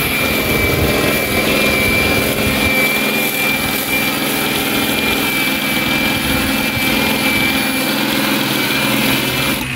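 Hand-held electric disc sander running steadily with a high motor whine as it sands the steel front panel and bumper of a VW Kombi for paint; it cuts off near the end.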